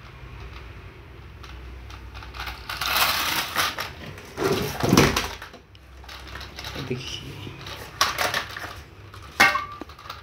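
Plastic toy tractor and its trailer being handled by hand: irregular rustling, scraping and clattering of hard plastic against cardboard and a board, with a sharp clack near the end.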